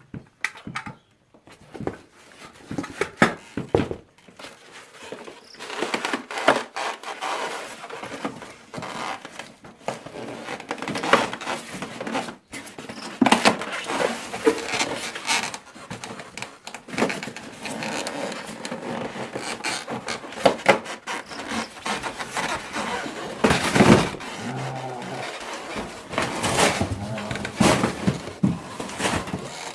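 Packaging and band-saw parts being handled during unboxing: irregular rustling and scraping, with knocks and clatters as pieces are pulled out and set down, one louder knock near the end.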